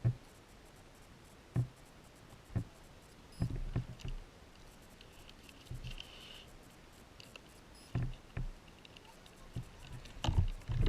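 Scattered knocks and clicks of handling, spaced a second or two apart and louder in a short cluster near the end, as a fresh battery is fitted into a Traxxas Spartan RC boat.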